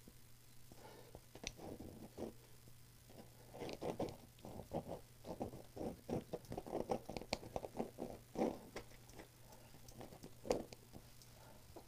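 Jumbo jet-black pencil scratching over a painted canvas in quick, irregular strokes and taps, with one sharper tap about ten and a half seconds in. A faint steady hum sits underneath.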